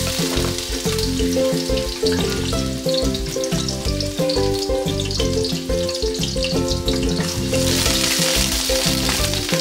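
Minced garlic sizzling in hot cooking oil in a wok, stirred with a wooden spatula near the end as the sizzle grows louder. Background music plays throughout.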